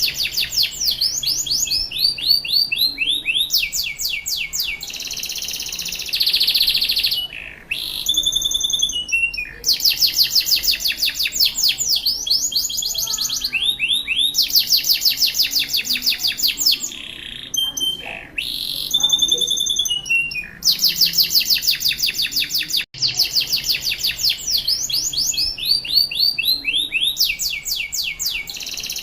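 Domestic canary singing a long, vigorous song: high, fast trills of quickly repeated notes, phrase after phrase with only short breaks.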